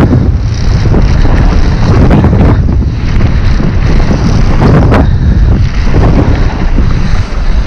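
Wind rushing over an action camera's microphone as a mountain bike runs fast down a gravel dirt trail, with the crunch of the tyres and the rattle of the bike over the rough surface. There are a few sharp knocks from bumps, one standing out about five seconds in.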